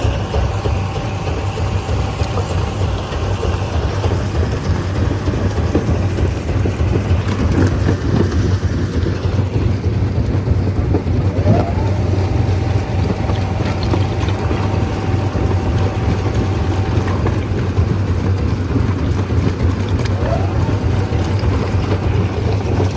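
Stone crusher running steadily: a loud, constant low hum under rough mechanical noise.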